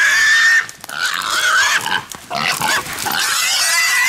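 Feral hog squealing loudly, in long high-pitched wavering squeals that break off briefly about a second in and again about two seconds in, as catch dogs hold it.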